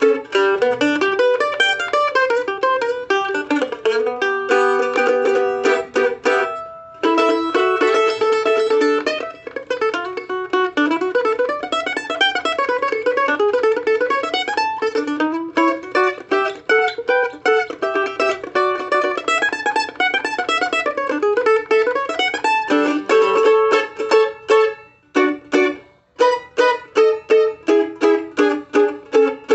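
Hughes No. 10 mandolin played solo: chords and a melody that moves into long runs of rapid tremolo picking, then evenly spaced strummed chords near the end. It stops just at the end.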